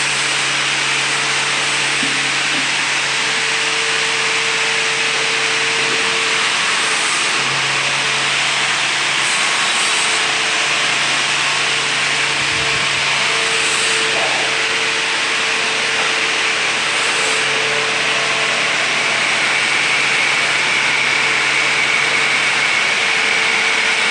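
SBX-FO1300RNE seam-closing machine running: a steady motor hum under a loud, even rushing noise that does not let up.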